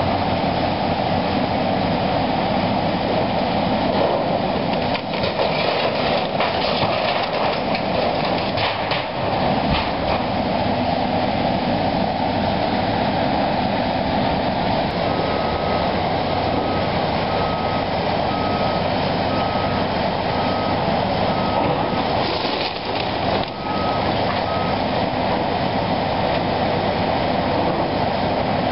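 Hydraulic demolition excavator running steadily as it tears into a brick building, with clattering and knocks of breaking masonry and falling debris about five to ten seconds in. Around halfway a backup alarm beeps about once a second, some ten times.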